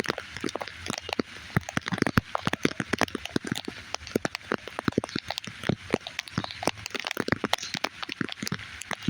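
Raindrops striking a surface: many separate, sharp drop impacts a second, irregular and unbroken.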